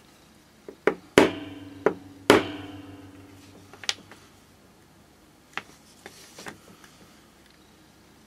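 Small hammer tapping the sterling silver lighter case: a few light taps, then two sharp strikes a little over a second apart, each leaving the metal ringing and fading out. Softer clicks of handling follow.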